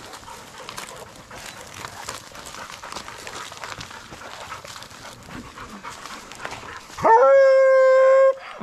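Hunting hounds scuffling and moving around a downed deer, with faint rustling in the leaves and brush. Near the end come two long held notes at a steady pitch, the second a little lower; these are the loudest sound.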